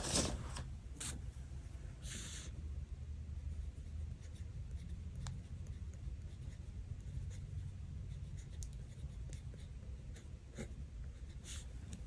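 Pen writing on planner paper, faint and scratchy, with a few light taps at the start and a short rustle of sticker paper just after two seconds in.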